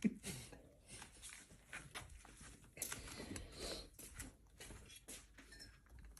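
Faint, irregular scratching and rustling of a cat squirming inside a pool table's plastic corner pocket, with scattered light clicks.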